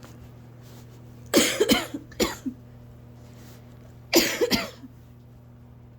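A person coughing from asthma in two bouts, one about a second in and another about four seconds in, each a quick run of several harsh coughs. The fit sets in as soon as they lie down to sleep.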